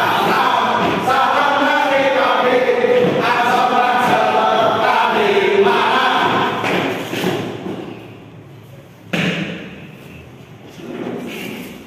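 A group of men singing a yel-yel (group cheer song) in unison, loudly, for about seven seconds before it stops. A little over a second later comes a single loud thump.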